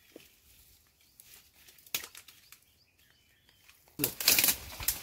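Faint rustling in the brush with a single sharp snap near two seconds in, then a sudden loud rushing whoosh about four seconds in, a video transition sound effect.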